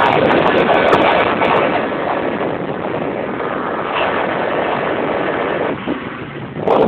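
Racing motorboat under way at speed: a steady rush of engine, wind and water noise. It eases off for about a second near the end, then comes back loud.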